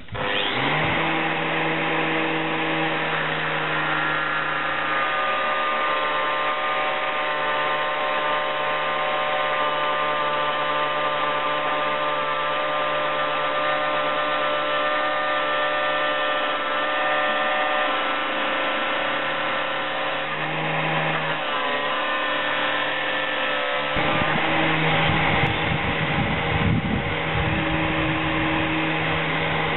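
Angle grinder in a cut-off stand starting up and then running steadily as a high whine while its cutting disc grinds through metal fence stock, throwing sparks. The sound turns rougher about three-quarters of the way through.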